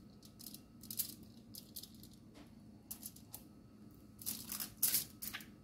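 Aluminium foil crinkling and rustling in short, faint bursts as seasoned whole fish are handled on it, the loudest bursts coming near the end.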